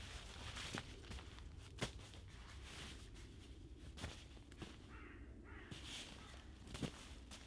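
Faint scattered clicks and rustles of someone moving about and handling gear, with a harsh bird call about five seconds in.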